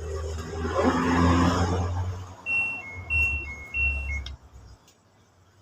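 LG washing machine sounding its error alert: three short pairs of electronic beeps, each a high tone then a lower one, over a low hum, stopping after about four seconds. This is the dE door error, which the owner traces to a missing door-sensor magnet.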